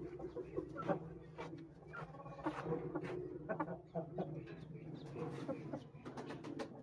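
Chickens clucking in short, scattered calls, with light clicks among them, over a low steady hum.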